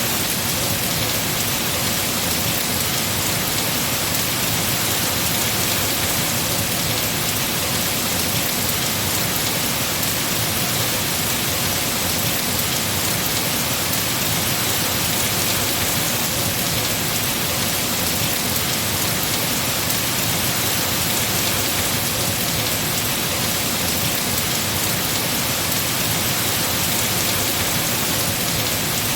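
Heavy rain falling steadily on trees and foliage, a dense even hiss.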